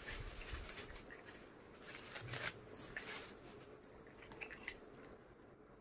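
Faint rustling and a few light clicks and knocks of small decor items being handled on a table.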